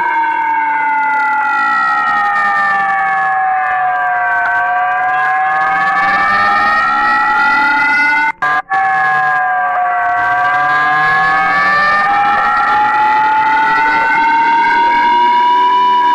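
Alarm siren wailing with a slow pitch sweep. It glides down for about four seconds, climbs back, cuts out twice very briefly about halfway through, then dips a little and climbs slowly again.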